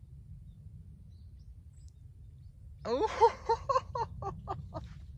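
Wind rumbling on the microphone; about three seconds in, a person's voice cries out in a quick run of pitched, fading pulses, laughter-like, in reaction to a putt stopping just short of dropping.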